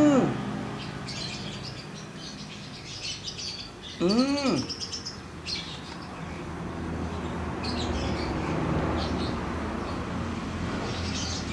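Small birds chirping and twittering, with two short rising-and-falling meows from a cat, one at the start and one about four seconds in.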